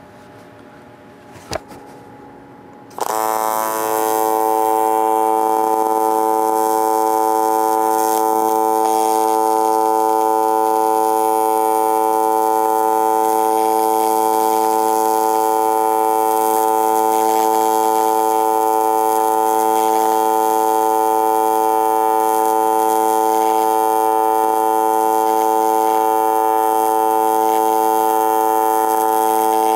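AC TIG welding arc on 3/8 inch aluminum plate at 225 amps: it strikes about three seconds in and then holds a loud, steady buzz. This is the slow start of a fillet weld, with the torch held while the thick plate heats up and the puddle forms.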